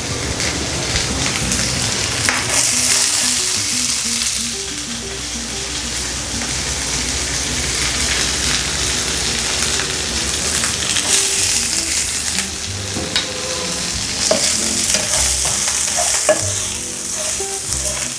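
Chopped garlic sizzling in oil in a Teflon frying pan and stirred now and then, the sizzle swelling in louder surges a few times.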